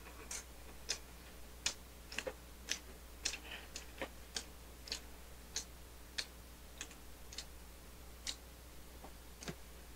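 Faint, sharp clicks at irregular intervals, roughly two a second, over a low steady hum.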